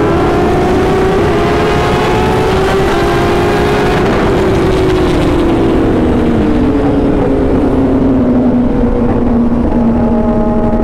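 Superbike engine running at highway speed, heard from the rider's seat: its note holds steady and climbs slightly, then drops in pitch over the second half as the throttle eases off. Heavy wind rush on the microphone throughout.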